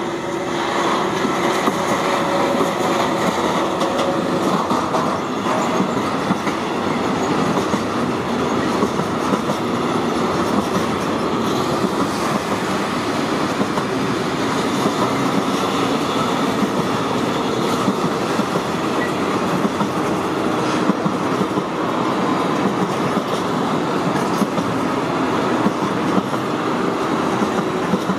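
Intermodal freight train of pocket wagons loaded with truck trailers rolling steadily past, a continuous noise of wheels running on the rails.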